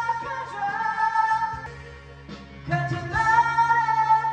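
A man singing karaoke into a handheld microphone over a backing track, holding long notes; the voice falls away for about a second in the middle, then comes back loud on another sustained note.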